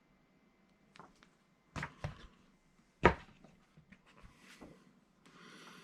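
Comic books being handled: a few light knocks and taps, the loudest about three seconds in, then a short rustle near the end.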